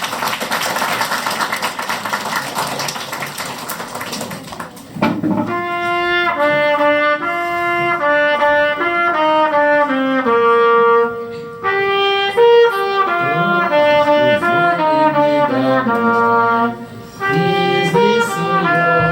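Clapping for about five seconds, then a solo wind instrument plays a slow melody in long held notes, breaking off briefly twice.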